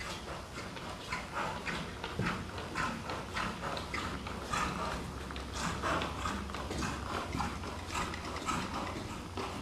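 Hoofbeats of a ridden dressage horse on soft indoor-arena sand footing, in a steady rhythm of about two beats a second.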